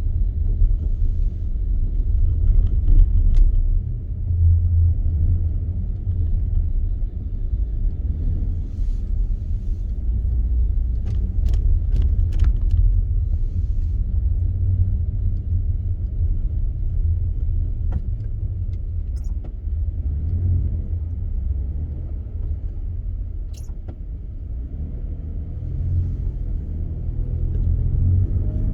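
Steady low rumble of a car driving on snowy roads, heard from inside the cabin. A few brief sharp clicks occur around the middle.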